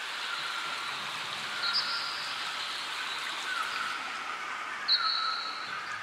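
Steady rushing hiss of flowing water, with clear chime-like ringing tones sounding every second or two.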